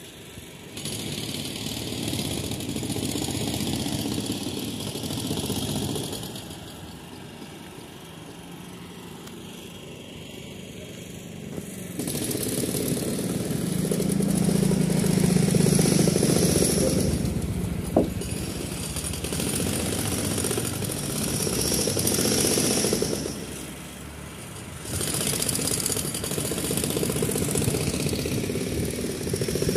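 Motorcycle engines passing at a walking pace, rising and fading in waves; one goes by close about halfway through and is loudest then. A single sharp click comes a couple of seconds later.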